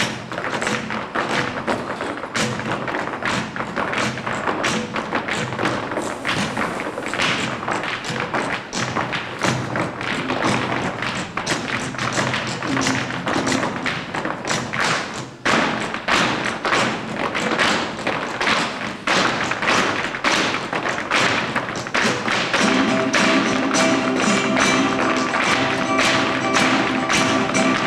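Live flamenco music picked up on a camcorder's microphone, with fast, dense percussive taps and stamps running through it. Some six seconds before the end, held notes come in and the music grows louder.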